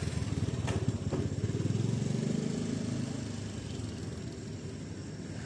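A vehicle engine running nearby, growing louder about a second and a half in and then fading away as it passes. Two short clicks come in the first second or so.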